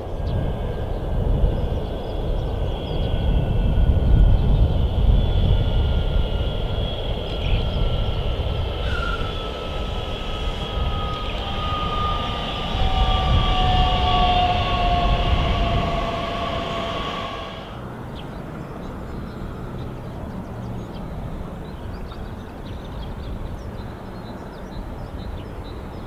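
Electric regional multiple unit passing close on the tracks: a loud rumble of wheels on rail with a motor whine that slides slowly down in pitch. The rumble and whine stop sharply about two-thirds of the way through, leaving a quieter low hum.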